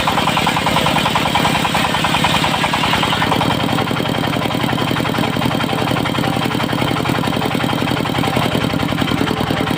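Diesel engine of a portable circular-saw sawmill with a 70 cm blade, running steadily. A louder, harsher high-pitched sound over it stops about three and a half seconds in, leaving the engine running on its own.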